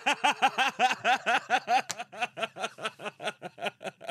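A person laughing hard in a rapid run of short "ha" pulses, about six a second, growing quieter in the second half.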